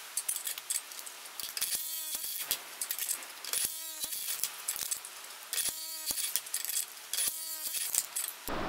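Makita 18 V cordless impact wrench run in short bursts about every two seconds (four times), driving the drawbolt of a dimple die through a steel strip. Between bursts there is metallic clinking of the die and strip being handled.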